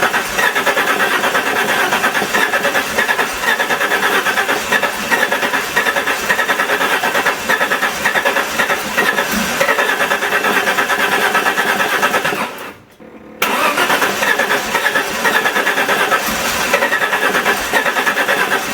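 Engine of an Alfa Romeo 164 2.0 V6 Turbo Busso, a steady rapid rhythmic pulsing. It drops away for about a second two-thirds of the way through, then comes back abruptly.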